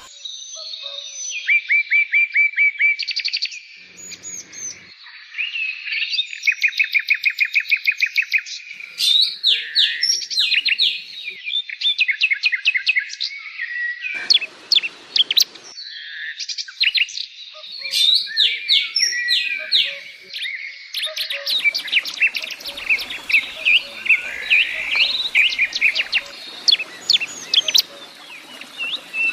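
Songbirds chirping and trilling: quick runs of short, high repeated notes that come in bursts of a second or two, separated by brief pauses.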